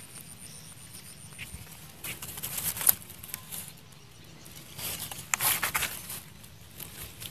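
Two bursts of rustling and sharp clicks, about two seconds in and again about five seconds in, over a steady low rumble.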